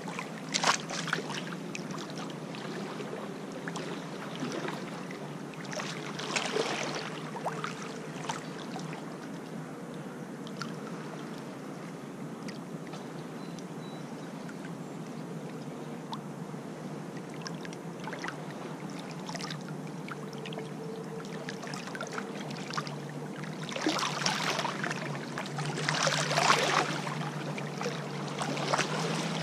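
Small lake waves lapping and washing over a shallow stony shore, with louder surges of splashing about six seconds in and again near the end.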